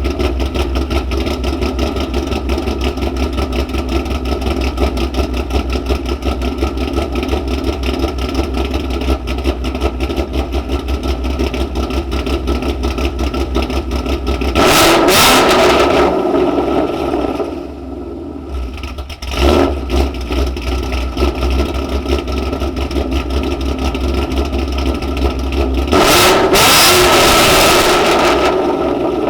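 Ford Mustang 5.0 V8 with American Racing headers idling with the choppy lope of a ghost cam tune. It is then revved hard twice, about halfway through and near the end, with a quick blip of the throttle in between.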